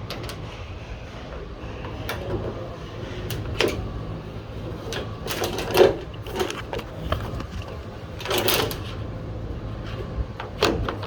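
A replacement sliding-door handle and its release cables being worked into the door panel by hand: scattered clicks, knocks and short rattles of plastic and metal, with a louder knock about halfway and a burst of rattling near the end, over a steady low hum.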